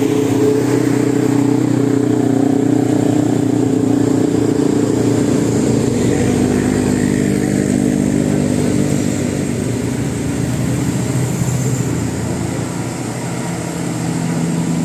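Motor vehicle engines running in road traffic: a steady engine hum for the first several seconds, then a shifting mix of engines that eases slightly near the end.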